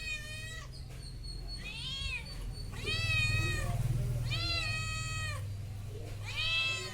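A cat meowing repeatedly: about five meows roughly a second and a half apart, each rising and then falling in pitch, over a low steady rumble.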